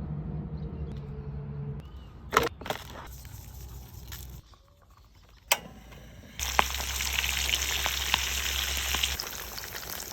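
Fish frying in hot oil: a loud sizzle with crackling that starts about six and a half seconds in. It comes after a low hum and a few sharp knocks.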